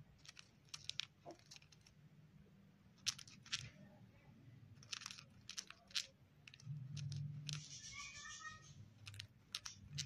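Cockatiel grinding its beak: a faint run of dry clicks and crunches in irregular clusters, with a brief soft chirr from the bird about eight seconds in. Beak grinding is the sign of a relaxed, drowsy cockatiel settling to rest.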